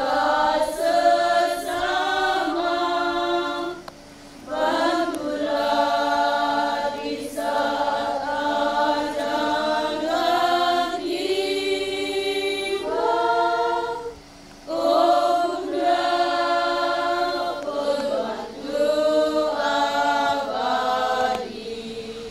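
A women's choir singing unaccompanied, in long held phrases with brief breaks about four seconds in and again about fourteen seconds in.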